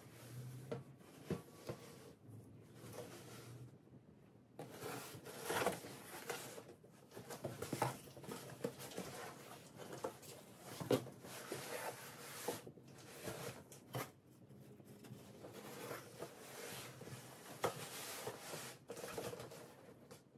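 Cardboard boxes being handled and shifted against the body, with scraping, rustling and sharp knocks of the cardboard. It is sparse for the first few seconds and busier after about four seconds.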